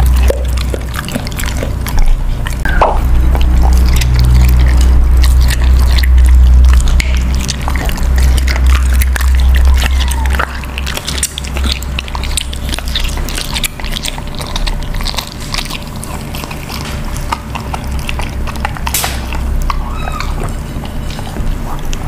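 A large dog chewing and licking raw meat held in its mouth, close to the microphone: a run of wet smacking and clicking mouth sounds.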